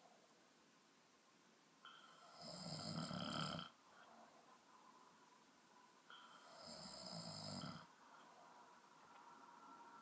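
A person snoring: two loud snores about four seconds apart, each lasting a little over a second and building from a softer start, with quiet breathing between them.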